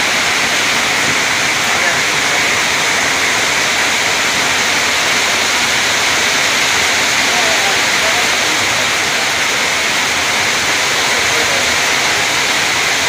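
Heavy rain falling, with runoff pouring off a roof edge and splashing below: a loud, steady hiss.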